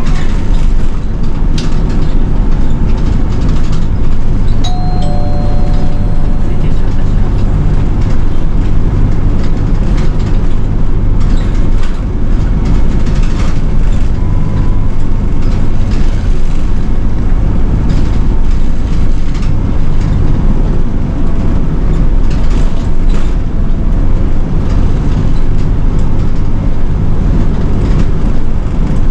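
City bus engine running steadily on the move, a low hum with the cabin rattling and clicking. A couple of short electronic tones sound about five seconds in.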